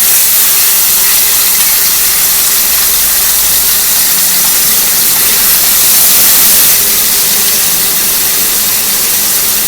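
Marinated fish pieces sizzling steadily in shallow hot oil in a pan.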